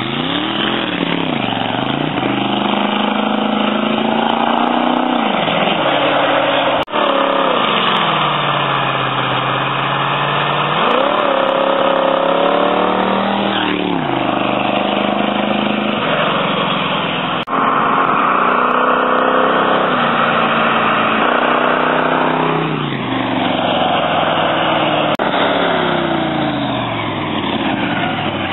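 Chevy 327 small-block V8 with a Lunati "Bare Bones" camshaft and a gear-drive timing set, running through short open exhaust pipes, revving up and dropping back again and again as the hot rod pulls away, with brief breaks in the engine note about a quarter, half and two-thirds of the way through.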